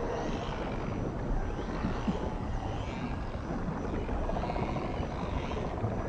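Underwater recording of dolphins: faint whistles gliding up and down over a steady low rumble of sea noise, with a lower, drawn-out call starting about four seconds in.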